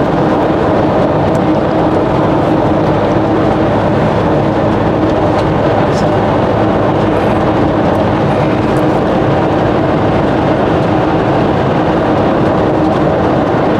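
Motorhome driving at a steady cruising speed: engine drone under a constant rush of tyre and road noise, heard from inside the cab.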